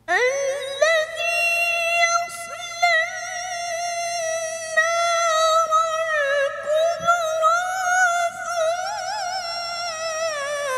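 A boy's high voice reciting the Quran in melodic tilawah style. It slides up into a long held note at the start and carries long, wavering, ornamented phrases, dipping briefly in pitch around the middle.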